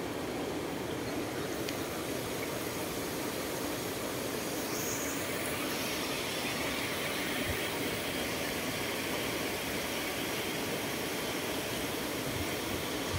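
Water rushing steadily through a gap between the stones of a water gate, a constant gushing flow.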